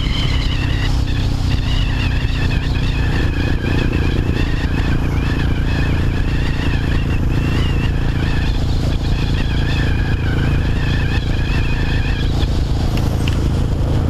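1998 Suzuki GS500's air-cooled parallel-twin engine running steadily through a Delkevic 200mm aftermarket exhaust, loud.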